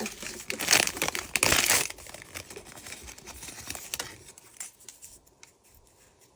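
Thin plastic wrapper crinkling and tearing as a Mini Brands miniature is unwrapped, loudest in the first two seconds, then lighter rustles and small clicks that die away about five seconds in.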